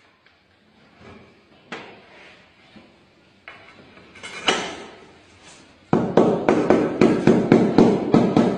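Knocking: a few scattered single knocks, then from about six seconds in a rapid, even run of sharp knocks at about four a second.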